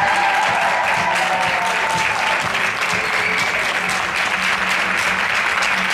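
Crowd applauding steadily, with many hands clapping at once.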